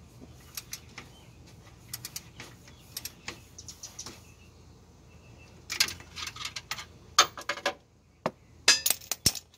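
Metal hand tools clicking and clinking as a wrench is worked on the oil cooler line's bolt under the car. Scattered single clicks come first, then louder quick runs of clicks about six to eight seconds in and again near nine seconds.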